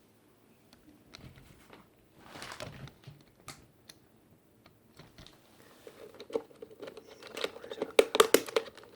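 Keys of a TG Sambo TG-K7000 gaming keyboard being pressed, a few scattered clicks at first, then a quick flurry of keystrokes in the last three seconds.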